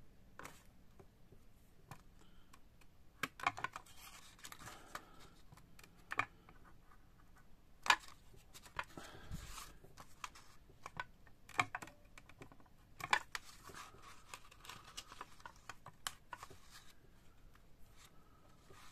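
Faint rustling and scraping of a waterslide decal sheet being handled and cut, with scattered small clicks as the decals are cut out.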